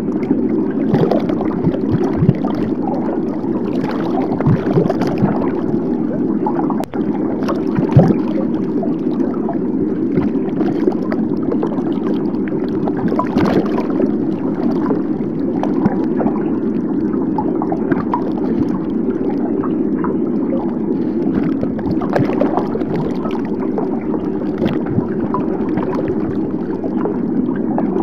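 Steady water noise, rushing and gurgling, with many faint clicks scattered through it.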